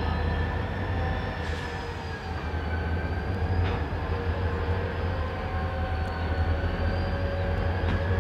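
Diesel-electric road-switcher locomotives of the Reading & Northern running as they move slowly: a steady low engine rumble with a high, slightly wavering whine above it and a few faint clicks.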